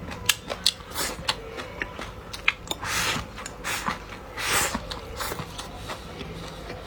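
A person chewing and eating close to the microphone: a string of short wet clicks and smacks, with two longer noisy spells about three and four and a half seconds in.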